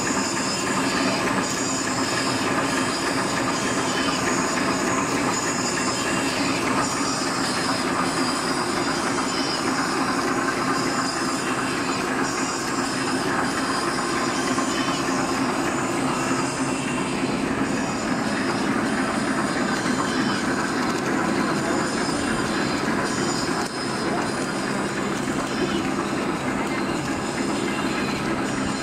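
A 6 mm plastic straw bending machine running steadily: its rotary drum and straw clamps make a continuous rapid clatter.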